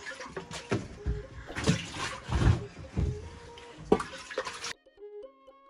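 Water sloshing and splashing as a saucepan is rinsed by hand, with knocks and clinks of the metal pan. The washing cuts off sharply about three-quarters of the way through and background music takes over.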